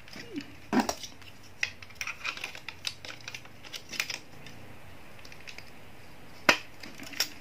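Hard plastic parts of a toy robot clicking and rattling as they are handled and pulled apart, with two sharp clicks near the end.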